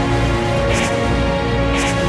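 Background theme music with a steady beat: held tones under a hissy percussion hit about once a second.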